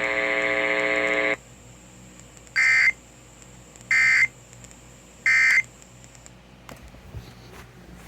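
A steady buzzy tone that cuts off about a second and a half in, followed by three short, identical bursts of Emergency Alert System data noise. The bursts are the end-of-message code that closes the alert.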